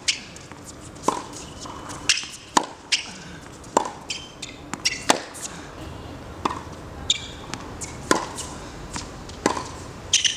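Tennis ball struck by a racket and bouncing on a hard court in a rally, a sharp pop every second or so, with short squeaks of shoes on the court surface between hits.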